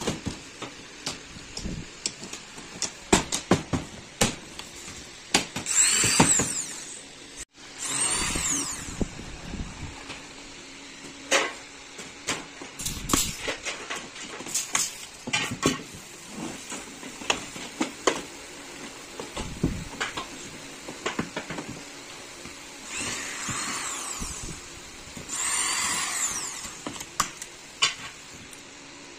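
Power drill run in four short bursts, each spinning up and winding down, as in driving screws, between sharp clicks and knocks of parts being handled.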